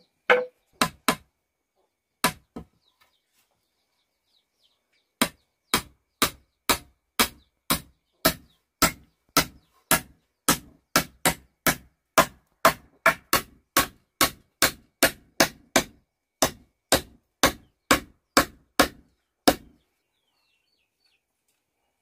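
Hammer blows driving nails through a wooden strip into a woven bamboo wall: a few strikes at the start, then a steady run of about two sharp blows a second from about five seconds in until shortly before the end.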